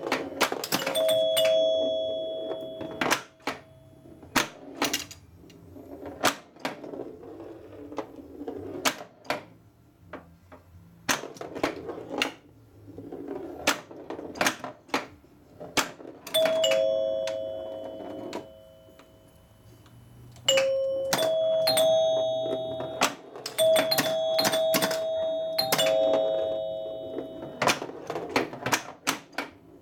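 Gottlieb Sinbad pinball machine in play: its scoring chimes ring in runs of single and overlapping notes at a few pitches, mixed with frequent sharp clicks and knocks from flippers, bumpers and the ball. The chimes come mostly in bunches about a second in, around the middle, and through the last third.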